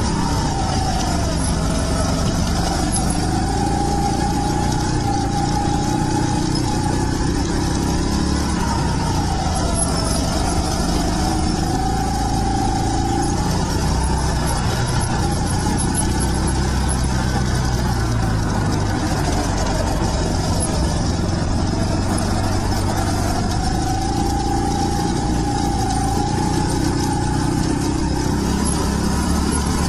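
Rental go-kart engine running hard, heard onboard with a steady loud rush of noise. Its note drops and climbs back up several times as the engine speed falls and picks up again.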